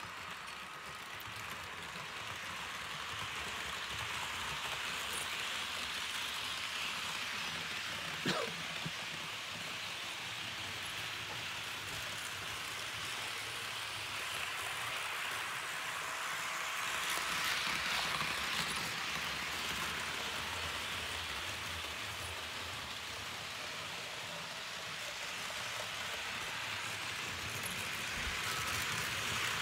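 HO-scale model train, a Piko Rh 1216 'Taurus' electric locomotive pulling Railjet coaches, rolling on the track: a steady rattling hiss of wheels on rails that swells a little as the train passes close. About eight seconds in a short falling tone with a click cuts through.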